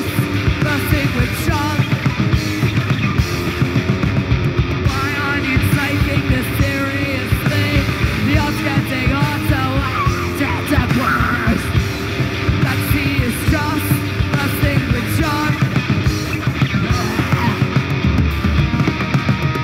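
Live punk rock band playing: electric guitar, bass guitar and drums, with a singer yelling and singing over them.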